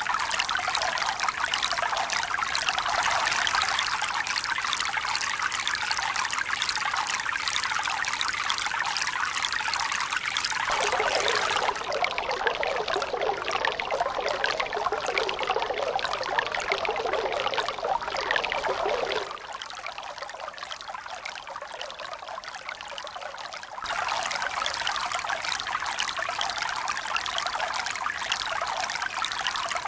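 Steady running water, trickling and splashing. Its tone shifts abruptly about eleven seconds in, and it turns quieter for about five seconds from around nineteen seconds before the fuller sound returns, as at joins between recordings.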